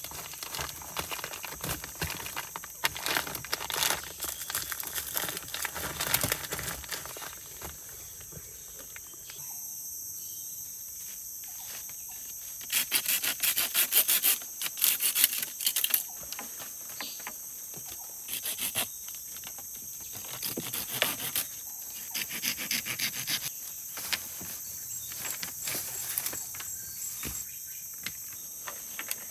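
Forest insects keep up a steady, high-pitched chorus. Over it come irregular rustling, rubbing and knocking from handling wood and materials during shelter-building work. A quick, dense run of scraping strokes comes a little under halfway through.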